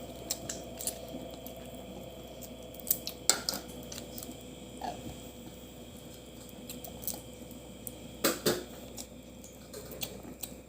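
Scattered clinks and clicks of dishes and eating utensils during a crab meal, loudest in two quick pairs about three seconds in and again about eight seconds in.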